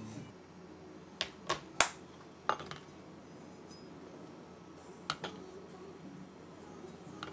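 Metal spoon clinking on stainless steel as crumble is scooped and sprinkled: three sharp clinks close together about a second in, another soon after, then two more spaced out later.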